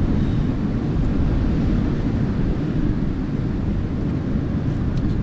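Strong wind buffeting the microphone: a steady low rumble with no letup.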